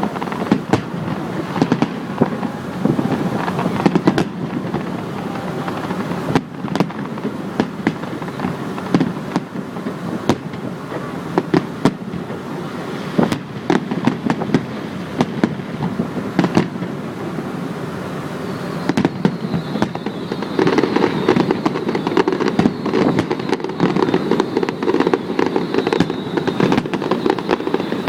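Fireworks display: a dense run of bangs and booms over a continuous rumble, growing thicker and louder about twenty seconds in.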